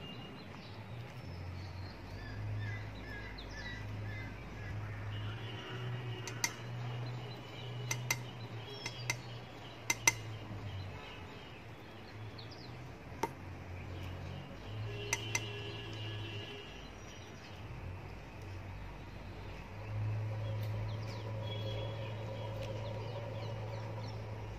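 Sharp clinks and knocks from Persian kittens at a ceramic food bowl, coming in a cluster about six to fifteen seconds in, over a steady low hum.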